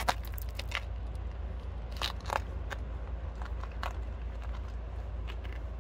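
Scattered clicks and crackling, crunchy rustles as hands and a cloth work in a car's driver footwell, over a steady low rumble; the sharpest clicks come right at the start and about two seconds in.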